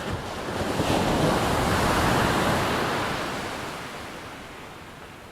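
Ocean wave breaking on the shore: a wash of surf swells up about a second in and fades away over the next few seconds.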